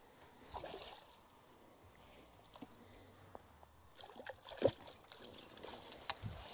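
Faint water splashing and sloshing from a small hooked carp being played close in on a short pole, with a few light knocks and one sharper click about four and a half seconds in.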